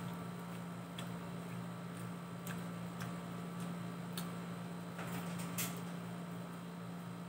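Quiet eating sounds: a few short, sharp clicks of chewing, lip smacks and fingers picking at food on a table, over a steady low hum.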